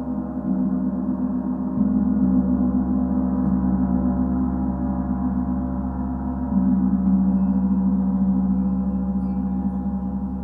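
Singing bowls ringing in long, steady, overlapping tones with a deep hum at the bottom. The sound swells twice, about two seconds in and again past the middle, as a bowl is sounded anew.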